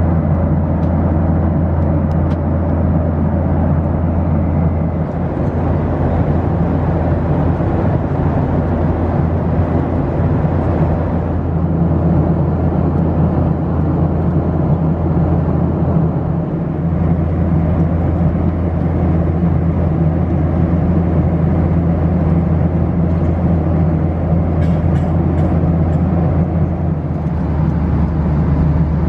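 Steady cabin noise of a Boeing 737-900 airliner in flight: a low engine drone with a rush of air, shifting slightly in pitch a few times.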